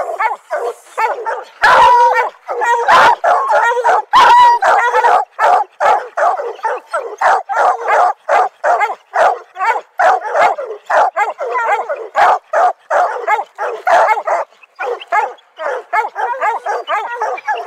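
Two hunting hounds baying at the foot of a tree in a steady, rapid chop of loud barks, about two or three a second, the sound of hounds that have treed a bear.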